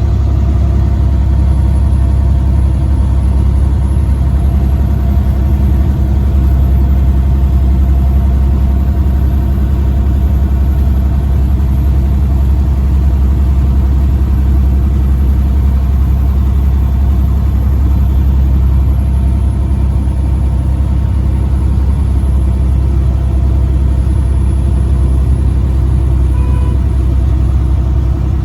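Truck engine and road noise while driving: a steady, even low drone with no change in pace.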